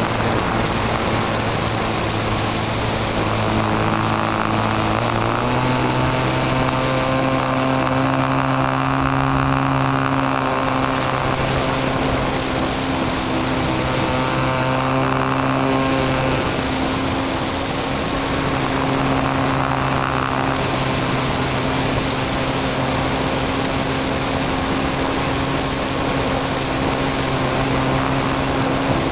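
Radio-controlled model airplane's motor and propeller running steadily in flight, heard close from the wing with wind rushing past. The pitch steps up slightly about five seconds in, then holds through the rolls and loops.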